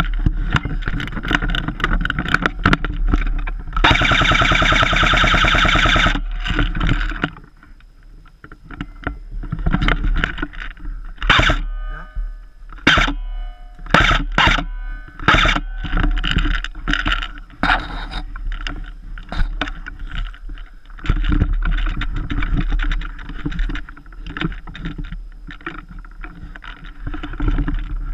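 Airsoft electric gun firing a full-auto burst of about two seconds. Scattered sharp clicks and knocks come before and after it.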